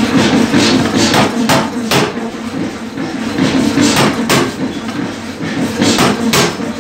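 Power forging hammer striking a red-hot square steel plate on its anvil with a series of heavy blows, several in quick pairs, over a steady low hum.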